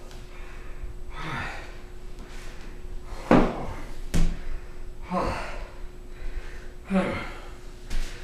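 A person gasping and breathing hard in short bursts every second or two while struggling on a hardwood floor, with thuds and a sharp knock about four seconds in from heels and gloves hitting the boards. A faint steady hum runs underneath.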